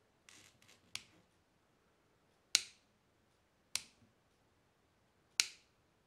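Red rocker switch on an IEC kettle-lead power inlet being flicked: four sharp clicks, a faint one about a second in and three louder ones roughly a second and a half apart.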